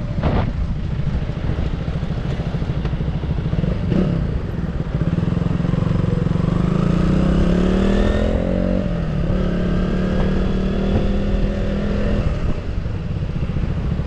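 KTM Duke 200 motorcycle running at road speed under a constant low rumble of wind and road. About five seconds in its note rises for a few seconds, dips briefly, then holds steady before fading back into the rumble near the end.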